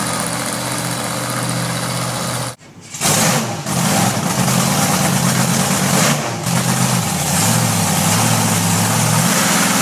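Monster truck's engine idling steadily, heard first from across a parking lot. After a sudden break about two and a half seconds in, it is heard close up and louder, with small rises and falls in engine speed.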